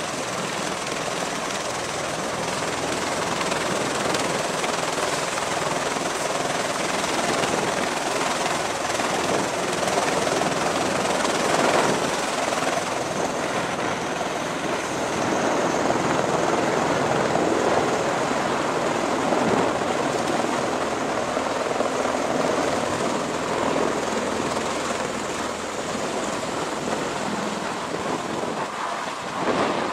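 MV-22 Osprey tiltrotor's turboshaft engines and proprotors running, a steady loud rotor noise with a faint high whine, as the aircraft spools on deck and lifts off into a hover.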